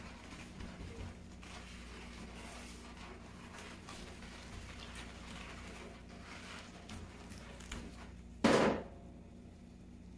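A chef's knife cutting and prying through the flesh and core of a fresh jackfruit, with soft scrapes, rustles and small clicks, over a steady low hum. About eight and a half seconds in comes a single loud, short thud.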